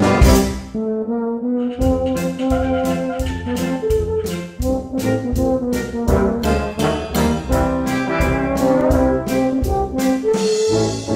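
Brass band playing a lively tune: euphoniums, baritones, tenor horns and tuba together, with a drum kit ticking out a steady beat of about two to three strokes a second.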